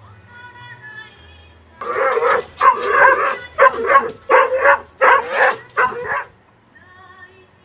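Dog barking: a quick run of about six loud barks lasting some four seconds, then stopping.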